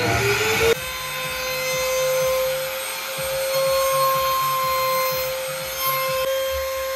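Handheld electric woodworking power tool spinning up with a rising whine in the first second, then running steadily at a high pitch.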